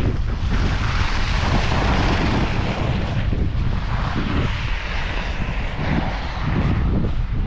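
A vehicle passing on the highway, its broad hiss of tyres and engine swelling over a few seconds and fading near the end, over a steady rumble of wind on the microphone.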